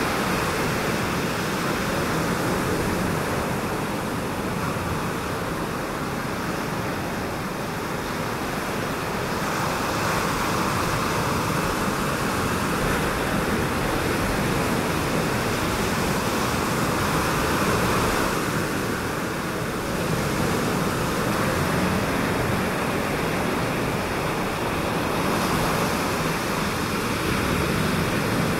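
Ocean surf: a steady wash of waves breaking over the reef, swelling and easing every eight or nine seconds.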